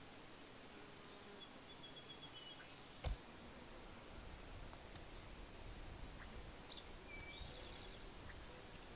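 Faint outdoor ambience with a few short, high bird chirps and a brief trill. A single sharp click comes about three seconds in, and a low rumble rises from about four seconds in.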